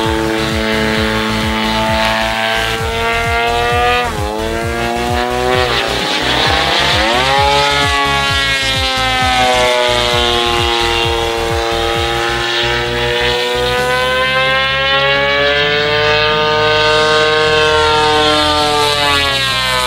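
DLE 130cc two-stroke twin-cylinder gas engine and propeller of a large-scale Extreme Flight Extra 300 RC plane in flight. The pitch drops sharply about four seconds in and again near six seconds, then climbs and swings slowly up and down as the plane moves through its maneuvers.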